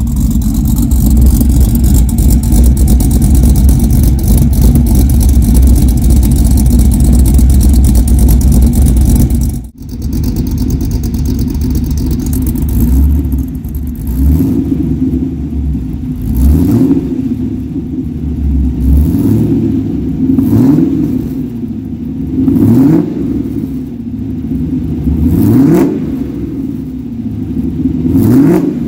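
Exhaust of a 1989 Chevrolet C1500's swapped 5.3-litre LM7 V8 through long-tube headers, X-pipe and Magnaflow mufflers: idling loud and steady right at the side-exit tailpipes for about ten seconds. Then, heard from farther off, it idles with a series of about seven quick revs, each rising and falling back.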